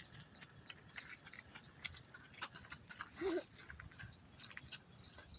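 A single short animal whine, bending in pitch, about three seconds in, amid scattered light clicks and rustling.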